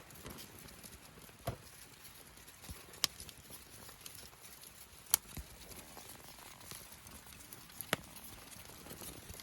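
Wood fire burning: a faint crackling hiss broken by sharp pops of burning wood, four of them louder than the rest.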